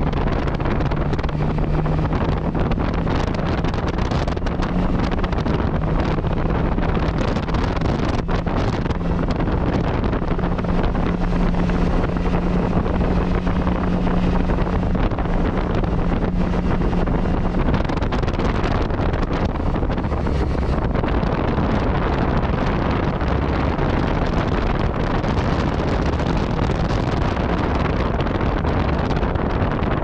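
Yamaha MT-09 Tracer's three-cylinder engine running at a steady road speed under heavy wind rush on the microphone while riding. The engine note holds a steady pitch, stepping up slightly a couple of times, and is buried in the wind noise for the last third.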